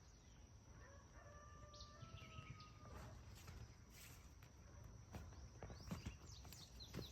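Faint, distant rooster crowing: one held call about a second in, lasting roughly two seconds. Small birds chirp near the end.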